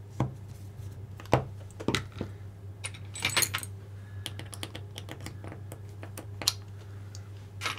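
Irregular light clicks and taps of small plastic kit parts and a screwdriver being handled while screws are fitted into an RC car kit part, over a steady low hum.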